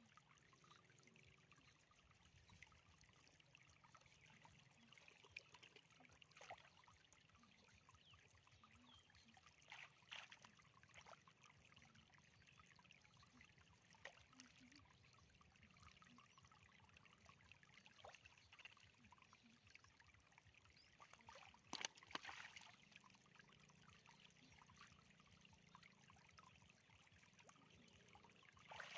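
Faint shallow-water sounds: a low steady trickle with a few short splashes scattered through, one sharper splash about three-quarters of the way through.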